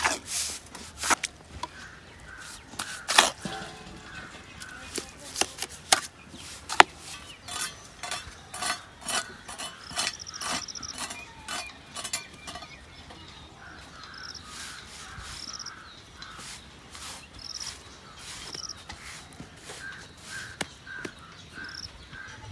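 Bricklaying: a mason setting red clay bricks in cement mortar on a concrete plinth beam, with sharp knocks and clicks of brick and trowel, thickest in the first half. A crow caws in short runs of repeated calls several times.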